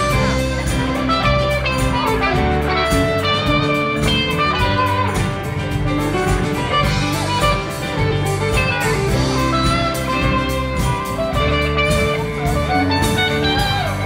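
Live rock band playing an instrumental jam: an electric guitar plays lead lines over drums and bass.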